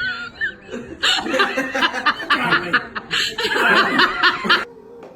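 A person laughing in rapid, pulsing bursts from about a second in, cutting off shortly before the end.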